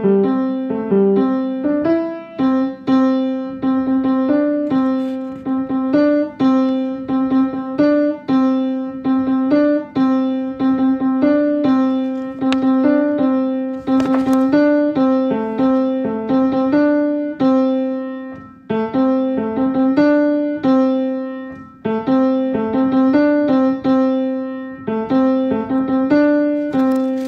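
Piano playing the tenor part of a choral piece at a slow practice tempo, one note after another.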